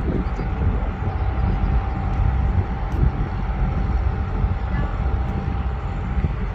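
Car driving along a road: a steady low rumble of engine and tyre noise, with a faint steady whine over it.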